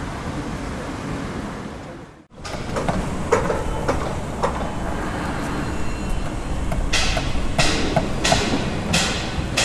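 Handheld outdoor camera noise: a steady rumble that briefly cuts out about two seconds in, then footsteps brushing through grass, four in a row near the end.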